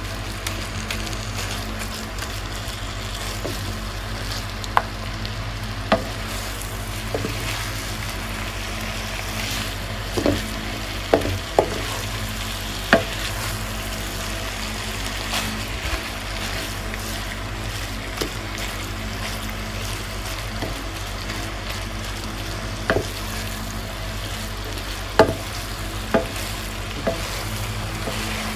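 Bangus (milkfish) sisig sizzling in a hot pan as two wooden spatulas stir and toss it, with scattered sharp knocks of the spatulas against the pan over a steady low hum.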